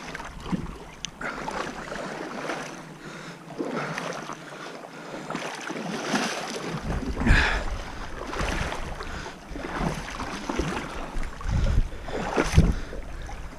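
Water splashing and sloshing in uneven bursts as someone wades through a shallow, rocky stream. A low wind rumble on the microphone joins about seven seconds in.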